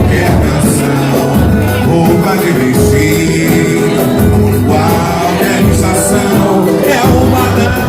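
Live band music with a steady bass beat, with voices singing.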